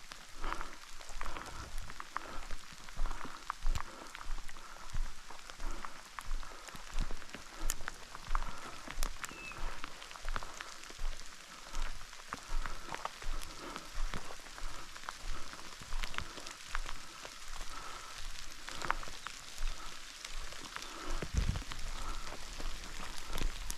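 Steady rain falling, with scattered drop ticks, over a regular rhythm of footsteps walking through wet scrub at about one step a second.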